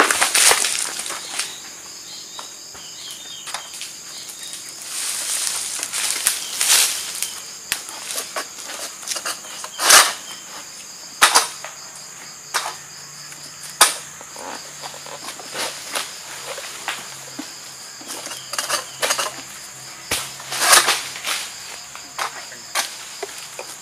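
An egrek, a long-poled palm-harvesting sickle, cutting at the stalks and frond bases of an oil palm: sharp cracks every few seconds, the loudest about ten seconds in, with some rustling of fronds. Insects chirr steadily throughout.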